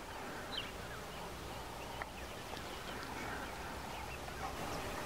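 Outdoor bush ambience: scattered short bird calls over a soft steady background hiss and low rumble.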